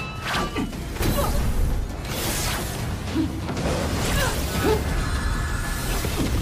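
Dramatic soundtrack music layered with fantasy-combat sound effects: whooshes and impacts over a deep rumble that swells about a second in.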